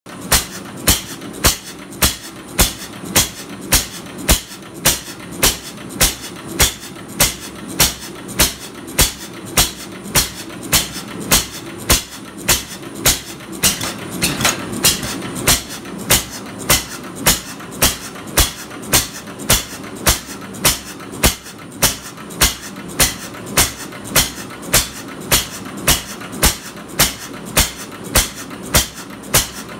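1912 Baker Monitor 5 hp type HJ single-cylinder, hopper-cooled stationary engine running, its exhaust banging sharply and evenly about twice a second over a low rumble. It is running for the first time in many years.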